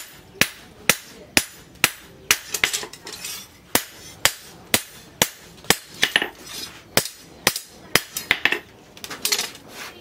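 Hand hammer striking a steel machete blade cut from a plough disc, about two sharp, ringing metallic blows a second with a few quick double strikes near the end, as the blade is worked on a stump.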